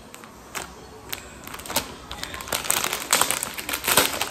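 Thin plastic packaging crinkling and crackling as a pack of socks is handled and opened, sparse at first and much busier in the last couple of seconds.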